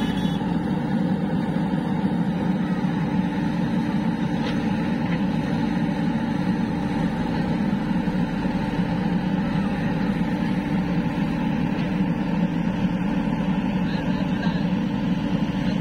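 Diesel engines of a JCB 3DX backhoe loader and a Mahindra tractor running steadily: a loud, even drone that keeps the same pitch without revving.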